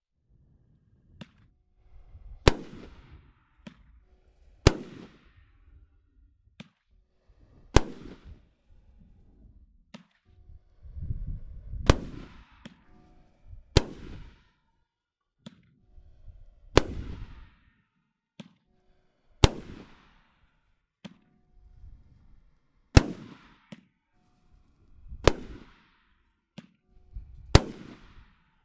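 A 20-shot 500 g fireworks cake firing one shot every two to three seconds. Each shot gives a low launch thump, then a sharp bang as the peony shell breaks, then a fading trail of glitter crackle.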